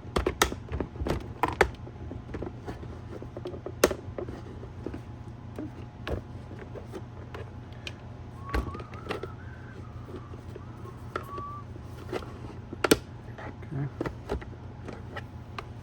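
Hard plastic parts of a car side-mirror assembly clicking and knocking as the mirror glass is handled and pried off its housing. The clicks are irregular, with sharper knocks near the start, about four seconds in, and about thirteen seconds in.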